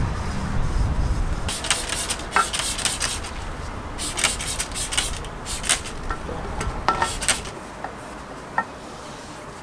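Cloth rag rubbing and scrubbing a metal mountain-bike frame and fork, with several short scratchy rustles and a few light clinks of the parts against the plastic drop-sheet.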